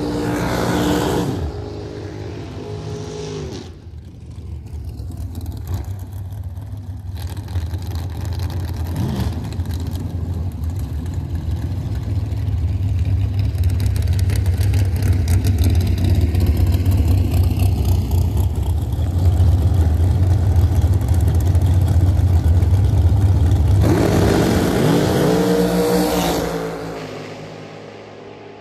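Drag racing cars' engines: a deep, loud, steady rumble as the cars sit at the starting line, rising into a rev and launch near the end, then falling away as the cars run off down the track. At the very start, another engine note drops away as a car passes.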